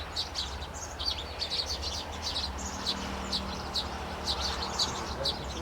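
Small birds chirping: a quick run of short, high chirps, about two or three a second, over a low steady hum.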